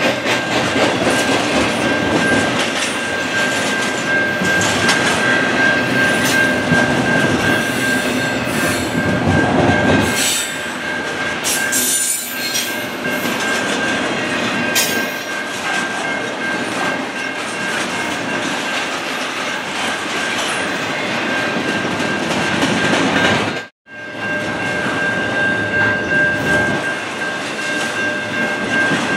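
Intermodal freight train cars rolling past close by: a dense rumble and clatter of steel wheels on the rails, with a steady high-pitched wheel squeal over it and brighter screeches about ten to thirteen seconds in. The sound cuts out for an instant about 24 seconds in.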